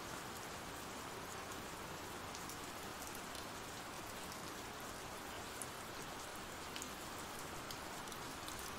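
Steady rain: an even hiss with a few faint drop ticks here and there.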